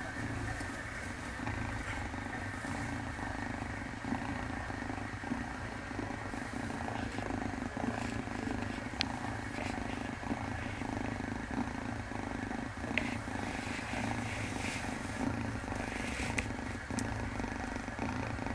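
Grey-and-white kitten purring steadily as it is stroked, with a couple of faint clicks.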